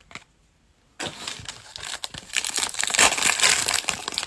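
Foil wrapper of a Panini Playoff football card pack being torn open and crumpled by hands, a dense crackling rustle that starts about a second in after a short quiet.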